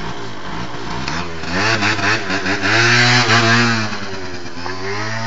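Motor scooter engine revving hard as the scooter pulls away, its pitch rising and wavering up and down, then settling into a steady drone near the end.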